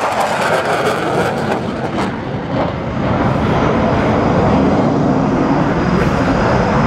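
Loud jet noise from an RAF Tornado GR4's twin RB199 turbofans, dipping slightly a couple of seconds in and then building again.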